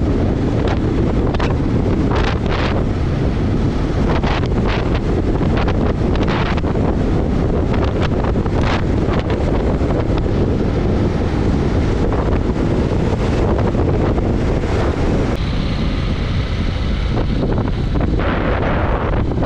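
Steady wind rushing over the microphone of a camera riding along on a motorcycle, loud and low, with the motorcycle's road noise underneath.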